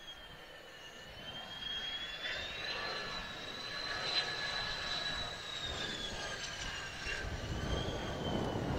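Mitsubishi F-2 fighter's single F110 turbofan on final approach with the gear down. A high whine wavers down, up and down again in pitch over a rumble, growing louder as the jet closes in low over the runway.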